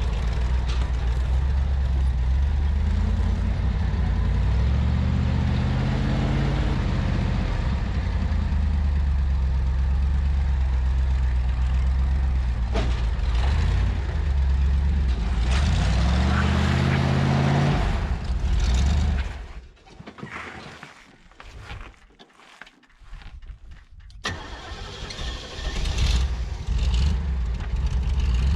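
Willys Jeep engine running while driving, its pitch rising twice as it revs up through the gears. About two-thirds of the way in the sound drops away for a few seconds, then the engine comes back.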